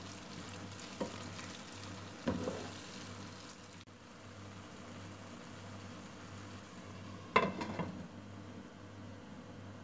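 Minced meat with onion and tomato paste sizzling in a frying pan as a wooden spatula stirs it, knocking on the pan about a second in and again a second later. About seven and a half seconds in, a glass pot lid clatters onto the pan, the loudest sound here.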